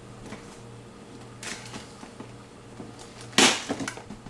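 Freezer drawer parts being fitted back onto their brackets: a loud plastic-and-metal clunk about three and a half seconds in, followed by a few smaller knocks, over a low steady hum.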